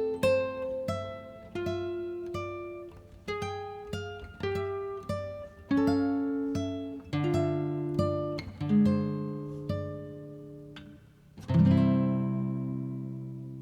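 Background music: an acoustic guitar picking a slow run of single notes and chords, ending on a full strummed chord about three quarters of the way through that rings out and fades.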